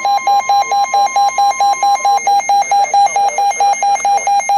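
Weather radio alert alarm beeping rapidly, about four or five buzzy beeps a second, over a steady warning tone that stops about two seconds in. It signals an incoming weather warning.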